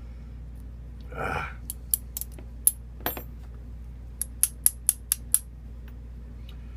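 Small metal parts of a padlock being worked during disassembly: a brief scrape about a second in, then about a dozen sharp clicks and ticks as pin tumblers and tool meet the lock body. One click just after three seconds rings briefly.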